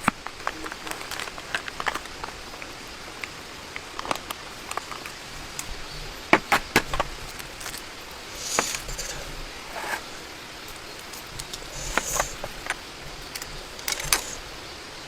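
Steady rain hiss with irregular sharp clicks and knocks, thickest around the middle, and a few short rustling bursts near the end.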